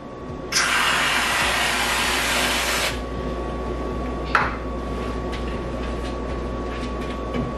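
Aerosol can of whipped cream spraying in one long hiss of about two and a half seconds, then a short second spurt a couple of seconds later.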